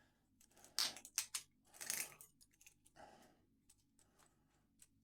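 Handcuff key and its key fob clicking and scraping against Chubb IK70 handcuffs as the key is worked in the lock, a few short metallic rattles about one, two and three seconds in.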